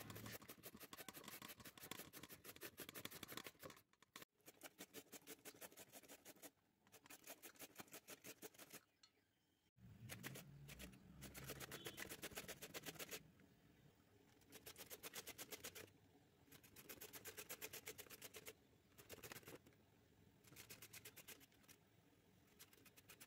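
Bottle gourd being grated on a flat hand grater: faint, rapid, rhythmic scraping strokes in runs of a few seconds, with short pauses between runs.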